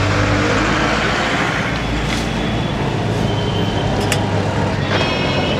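Steady din of street traffic, engines and road noise. A couple of sharp clicks come about four seconds in, and a high thin tone starts near the end.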